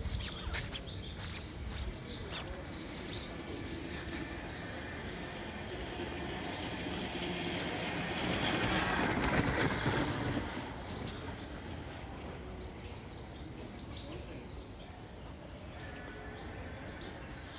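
Street background noise with a passing vehicle that swells to its loudest about nine seconds in and then fades away. A few sharp knife taps near the start as a pineapple is cut.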